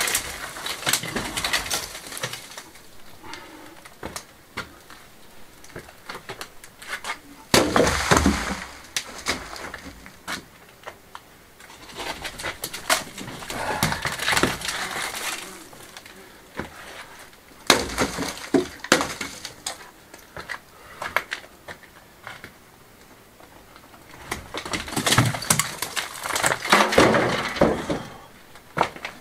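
Stones and crumbling rubble being pulled loose from an old stone wall and dropped into a metal wheelbarrow, heard as several bursts of knocking, cracking and clattering with quieter pauses between them.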